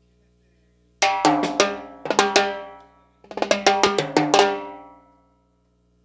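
Two short drum fills during a sound check, each a run of quick, sharp strikes that ring out, about two seconds apart. A steady low hum from the sound system runs underneath.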